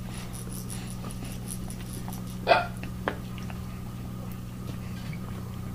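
A baby makes one short, loud vocal sound, like a hiccup or squeak, about two and a half seconds in, and a small click follows.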